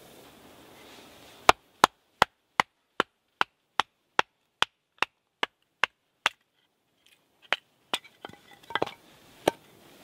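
Batoning firewood: a wooden baton knocking a knife down through a stick stood on a log chopping block. A steady run of sharp wooden knocks, about two and a half a second, then a short pause and a few uneven knocks near the end.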